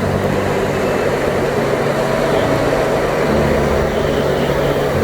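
Jet ski engine running steadily at speed, under a rushing noise.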